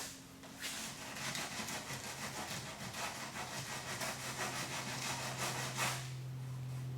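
Fast, rhythmic rubbing for about five seconds, over a steady low hum that grows louder about four seconds in and keeps going, plausibly the heat gun used to soften the plastic wheel flare.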